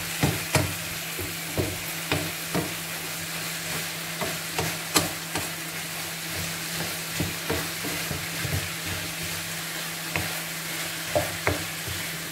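Spoon stirring and scraping in a pan of meat pie filling as it cooks: irregular clicks and scrapes over a steady hiss from the pan.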